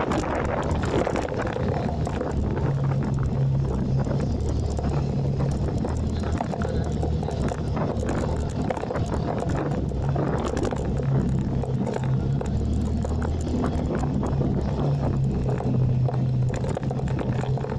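Motorcycle engine running while being ridden, a low engine hum that comes and goes under a rushing wind noise.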